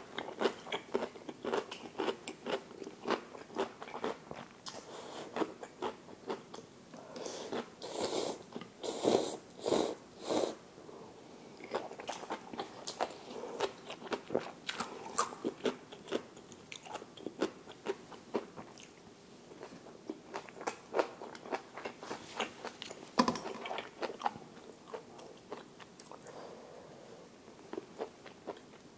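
Close-miked eating sounds of ramyeon and gimbap: steady wet chewing and crunchy biting, with a few longer, louder slurps about a third of the way in.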